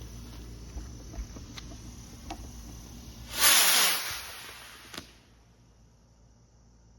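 Consumer firework rockets launching with a loud hissing whoosh about three seconds in that lasts about a second, followed by a single sharp pop a second later. Crickets chirr steadily underneath.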